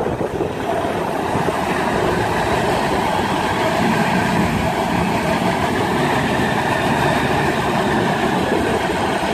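Twin outboard motors running steadily at high throttle, their propellers churning the shallow water into spray, as they power the boat up onto its trailer.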